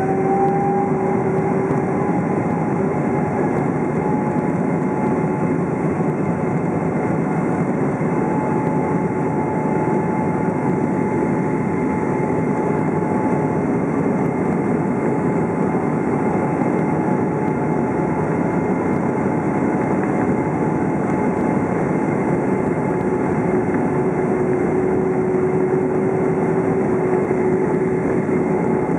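Boeing 777-200's jet engines heard from inside the cabin over the wing, running steadily at low taxi thrust. A constant whine sits over a dense rushing hum.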